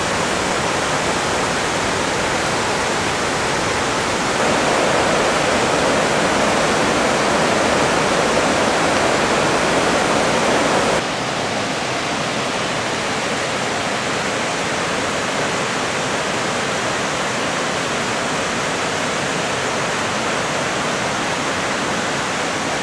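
Rushing white water of a rocky mountain creek, a steady, even rush. About eleven seconds in it changes abruptly to a second creek's slightly quieter rush.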